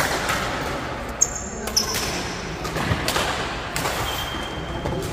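Badminton rally in an echoing sports hall: several sharp smacks of rackets striking the shuttlecock, the loudest about a second in, and short high squeaks of shoes on the court floor.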